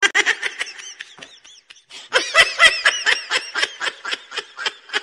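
High-pitched human laughter: a rapid run of short giggling bursts, about five a second, with a brief lull partway through.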